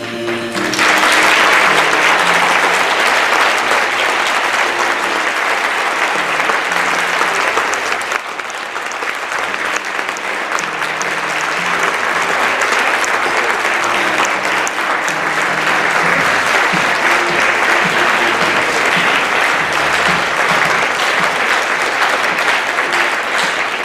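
Audience breaks into applause about half a second in and keeps clapping steadily, with music playing quietly underneath.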